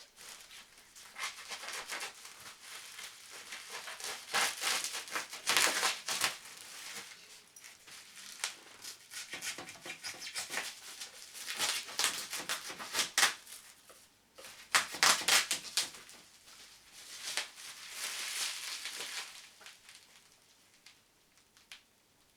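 Packaging being handled as a welding machine is unboxed: irregular bursts of crinkling and rustling, with a few louder sharp rustles.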